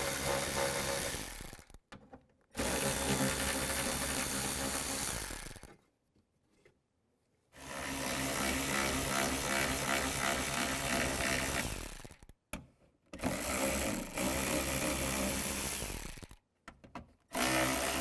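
Cordless power tool turning a 10mm socket to back out bracket screws, its motor running steadily in several runs of a few seconds each, with short pauses between them.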